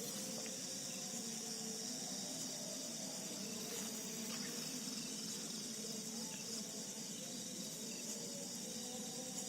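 Steady chorus of night insects, an even high-pitched trilling with no break, over a fainter low steady hum.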